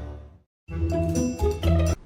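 Background music with distinct pitched notes fading out, a brief dead gap of silence, then a short new phrase of music that cuts off abruptly at the end.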